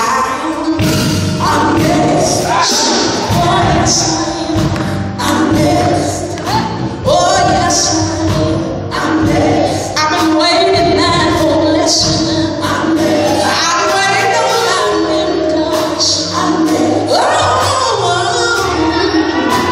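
Live gospel music: a group of women singing together into microphones, amplified through the church's sound system, backed by a keyboard and a steady beat.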